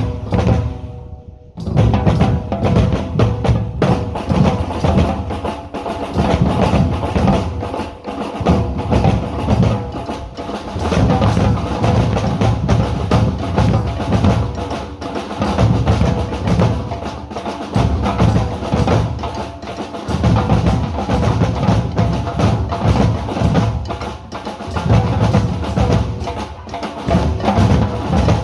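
Group drumming: drums and percussion playing a continuous rhythm together, starting after a short break about a second and a half in.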